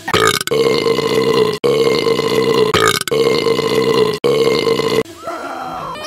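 A loud, long burp sound effect played four times back to back, each cut off abruptly, then a quieter pitched sound in the last second.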